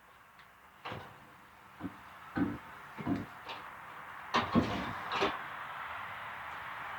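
A run of knocks and thumps, about seven in a few seconds, as a refrigerator is shifted and bumped against the refrigerators it is stacked on; the loudest bangs come just past the middle. A steady rushing noise follows them.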